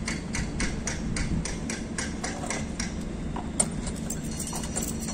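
Quick, even metallic taps, about three a second, like a hammer striking metal lashing gear, over a steady low machinery hum. The tapping stops about three seconds in, followed by one sharper click and a few scattered ticks.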